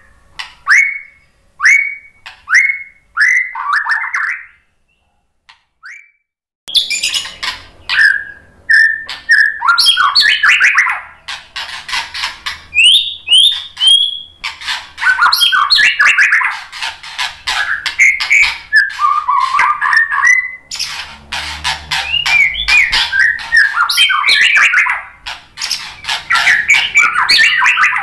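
White-rumped shama (murai batu) singing: first a run of short, falling call notes about twice a second, then a pause of about two seconds, then a fast, varied song of whistles, trills and clicking notes, full of mimicked phrases (isian), that runs on without a break.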